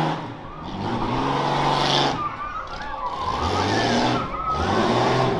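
Rough-truck racing engine revving over the course, its pitch rising and falling with the throttle, with a rising rev about four seconds in.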